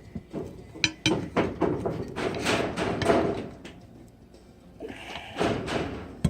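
Knocks and clicks of grips and hands working against a steel ATV wheel rim while a new rubber snap-in valve stem is pulled through the rim hole. The knocks come in a busy run from about a second in, ease off, and pick up again near the end.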